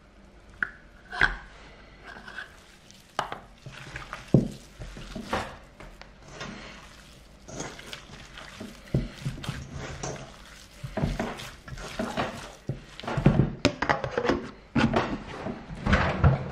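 Hands kneading a ground-meat filling in a stainless steel bowl: wet squishing with irregular knocks and clatters of the metal bowl, which grow busier near the end as a plastic lid is pressed on.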